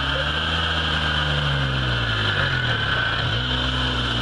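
Suzuki Samurai's engine labouring as the 4x4 crawls up a steep dirt bank, its revs rising and falling. The revs dip briefly about three seconds in, then pick up again.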